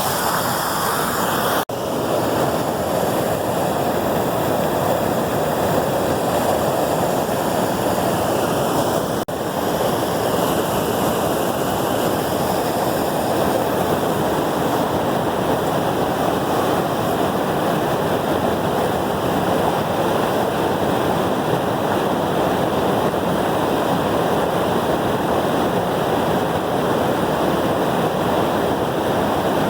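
Waterfall: falling water rushing loudly and steadily. The sound cuts out for an instant twice, about two seconds and nine seconds in.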